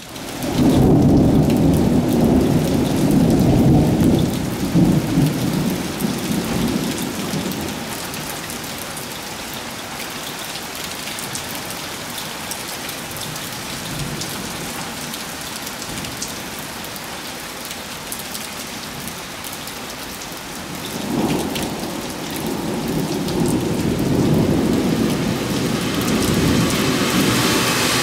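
Thunderstorm: rain falling steadily, with two long rolls of thunder. The first breaks at the start and dies away over several seconds; the second builds about three-quarters of the way through and is still rolling at the end.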